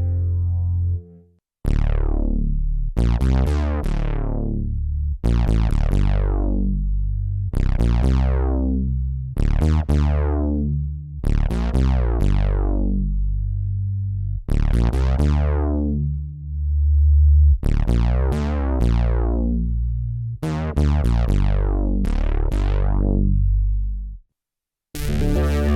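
Korg opsix FM synthesizer playing a deep bass patch as a run of separate notes, about one a second, each starting bright and quickly mellowing as the upper overtones die away. Near the end the line stops and a new, bright sustained sound begins.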